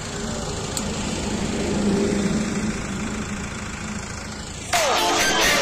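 Diesel engine of an Escorts Hydra 14 mobile crane running steadily, growing louder for a second or so around two seconds in. Near the end a loud pitched sound cuts in suddenly and runs for about a second and a half.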